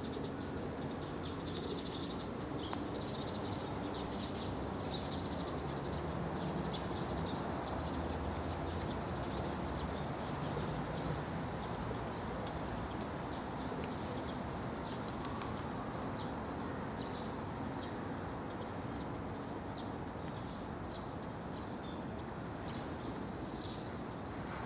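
Outdoor park ambience: a steady background rumble with many short, high chirps of small birds scattered throughout.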